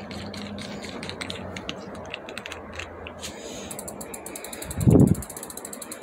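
Bicycle rear freehub pawls clicking as the chain and cassette are turned while the chain is lubed, the ticking turning into a fast, even clicking near the end. One low thump about five seconds in.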